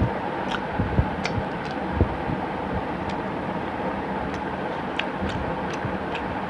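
A person chewing and smacking while eating chicken curry and rice by hand, with scattered soft mouth clicks over a steady background hum.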